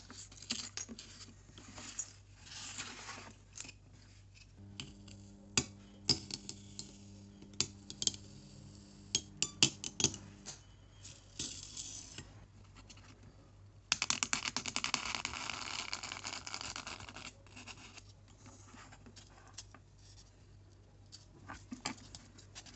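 XPS foam pieces and thin wooden templates being handled and slid on the metal table of a hot-wire foam cutter: scratchy rubbing and sharp clicks, with a denser stretch of rubbing about 14 seconds in, over a faint low hum.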